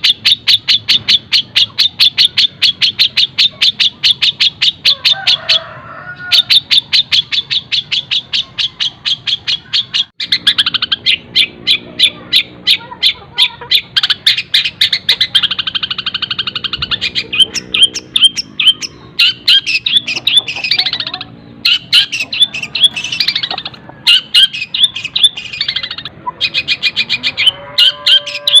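Long-tailed shrike (cendet) singing a fast, tightly packed run of sharp repeated chips, about five or six a second. Its song is filled with mimicked calls of other birds, such as a kingfisher and a sparrow. After a short break it goes on with more chip runs, then changes to varied falling, sweeping phrases.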